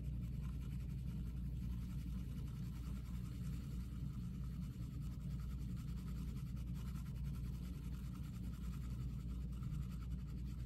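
Coloured pencil rubbed softly over fabric in small circular strokes, a faint continuous scratching over a steady low hum.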